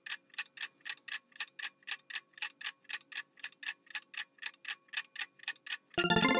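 Countdown clock sound effect ticking evenly at about four ticks a second. Near the end a chiming musical jingle takes over.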